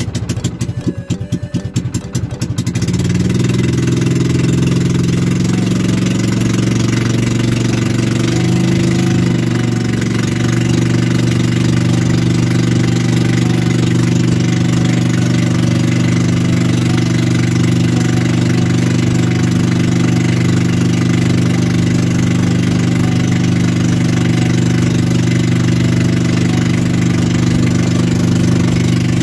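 Small fishing-boat engine starting: it fires unevenly for the first two or three seconds as it catches, then settles into a steady, loud run.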